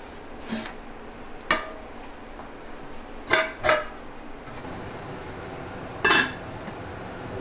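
Kitchenware clinking: five short knocks and clinks of utensils against dishes, two close together about halfway through and the loudest, slightly longer one near the end.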